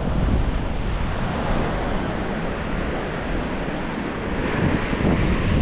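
Strong wind buffeting the microphone with a low, uneven rumble, over the steady wash of surf on the beach.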